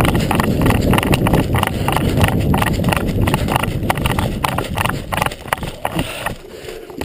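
Footsteps of a person running over rough ground, about four strides a second, with a heavy low rumble on the microphone; the steps thin out and grow quieter near the end.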